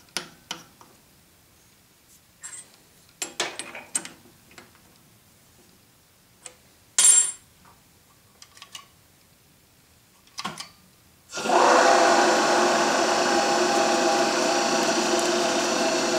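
Scattered metal clicks and knocks as a drill bit is fitted in the chuck of a Clausing drill press, with one sharp metallic clack about seven seconds in. At about eleven seconds the drill press motor starts and runs steadily with a hum of several steady tones.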